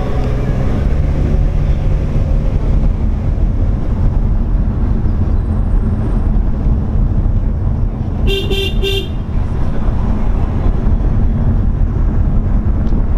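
Steady low rumble of a car driving, with a car horn tooting three quick times about eight seconds in.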